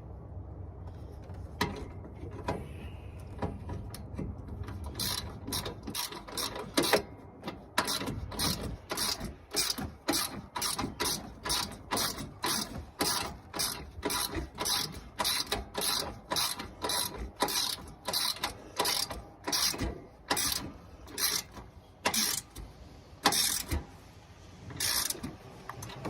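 Hand ratchet wrench clicking in quick repeated strokes, about two a second, starting about five seconds in: a bolt being run down and tightened while the radiator fan assembly is refitted.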